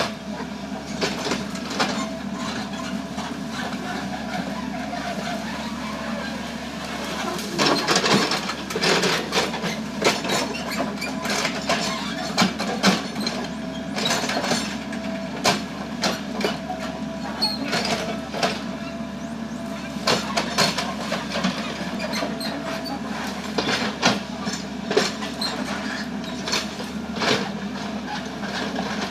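Foton FR150-7 crawler excavator's diesel engine running under load, with a steady high whine over its drone. From about seven seconds in come many sharp cracks and knocks as the arm and bucket tear through brush and branches.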